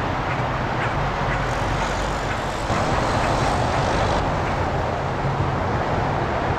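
Steady rumble and hiss of traffic on an elevated highway bridge.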